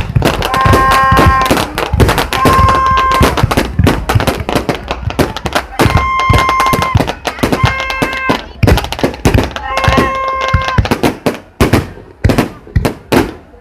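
Fireworks going off in dense, rapid bangs and crackles that thin out into separate bangs near the end. A held, pitched tone of under a second sounds several times over them.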